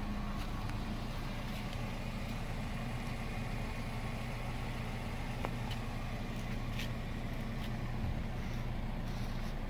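A 2007 Toyota Corolla's 1.8-litre four-cylinder engine idling with a steady low hum.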